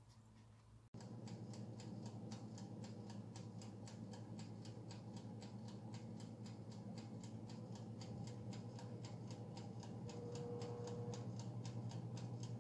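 Mechanical timer of a Favex countertop electric oven ticking steadily, about four to five ticks a second, over the low hum of the oven running as the dough rolls bake. The ticking and hum start about a second in.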